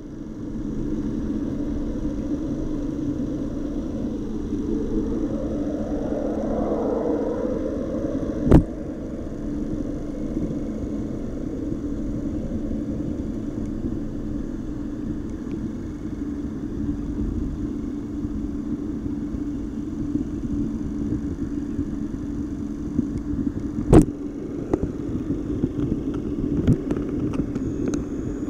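Steady hum and rush of water from a fish tank's recirculating system, its pump running and inflow water splashing into the tank, with two sharp knocks about fifteen seconds apart.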